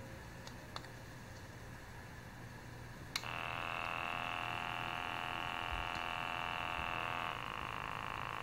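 Ozeri BP01K wrist blood pressure monitor's small air pump switching on with a click about three seconds in, then running with a steady buzz as it inflates the wrist cuff. Its tone changes slightly near the end as the cuff pressure climbs.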